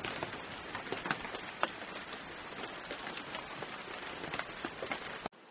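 Steady rain: an even hiss with many separate drops ticking. It cuts off suddenly near the end.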